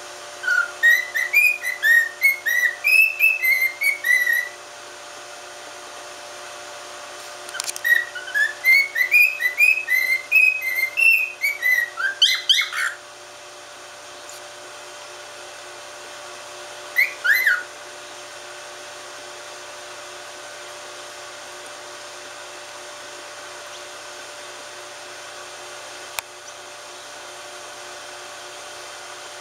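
Cockatiel whistling two phrases of quick, up-and-down notes, each a few seconds long, then one short call. A steady hum runs underneath throughout.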